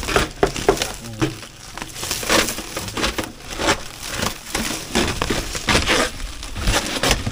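A styrofoam shipping box and its plastic wrap being broken and pulled open by hand: a run of irregular crunches and crackles.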